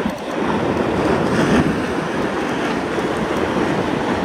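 Surf breaking against rocks, with wind buffeting the microphone; the wash swells about a second and a half in.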